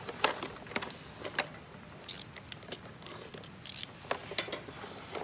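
Cardboard box being handled and opened: a scatter of light taps and clicks, with a couple of short scraping rustles of cardboard sliding.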